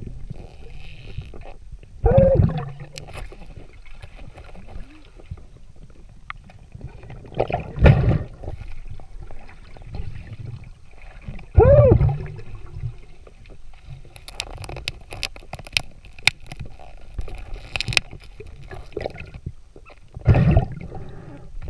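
Underwater sound of a river dive: muffled bursts of bubbling and gurgling every few seconds over a low rumble, with scattered sharp clicks and knocks in the second half.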